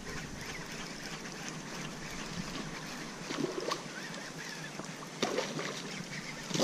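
Baitcasting reel being cranked, its retrieve a soft, steady whir with a few faint clicks.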